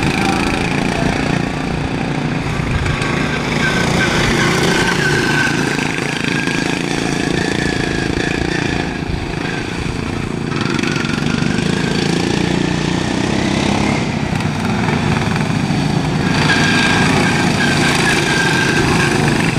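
Several racing lawn mowers' Briggs & Stratton engines running hard together, their pitch rising and falling as the mowers accelerate and pass.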